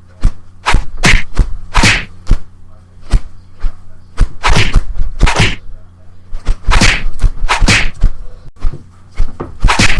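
Fight sound effects: a run of swishes and hard hits, like blows landing, coming in irregular clusters of two or three, over a faint steady low hum.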